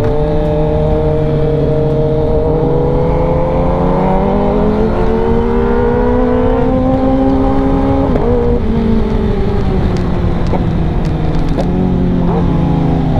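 Kawasaki ZX-10R's inline-four engine through an aftermarket full-system exhaust at highway speed, the pitch rising slowly under throttle, dropping back about seven to eight seconds in, then holding steady.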